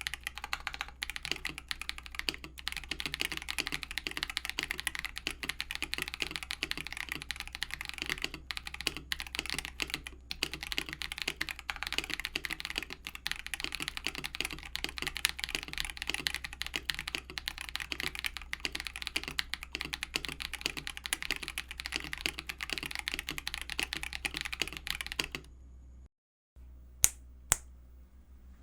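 Fast, continuous typing on a mechanical keyboard fitted with lubed Akko CS switches: a dense, unbroken run of keystrokes. Near the end the typing stops, and two sharp clicks follow a second or two later.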